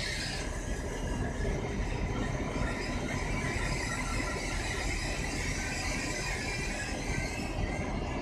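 Pair of SNCF BB 67400 diesel-electric locomotives running in multiple, hauling a passenger train past: steady engine rumble, with wheels squealing thinly on the rails.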